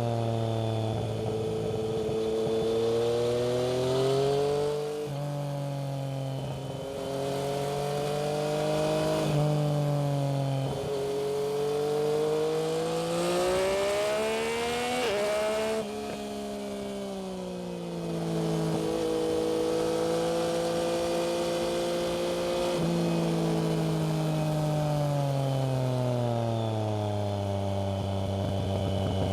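Yamaha MT-09's inline three-cylinder engine through a Black Widow aftermarket exhaust, heard while riding. Its pitch climbs under acceleration and drops sharply at each upshift, about five, nine, fifteen and twenty-three seconds in. Near the end it eases off, the pitch falling steadily.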